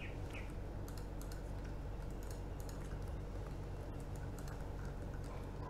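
Scattered light clicks of a computer keyboard and mouse, irregular and faint, over a steady low hum.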